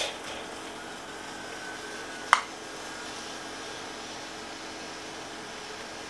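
A ladle clinks once, sharply, against a stainless pot or ceramic bowl while stew is being ladled out, about two seconds in, over a steady machine hum.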